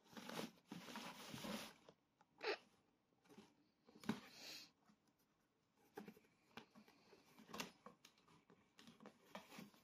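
Kittens' claws scratching and scrabbling at a cardboard box: faint, irregular scrapes and rustles, with a longer run of scratching over the first couple of seconds and scattered small scratches and taps after.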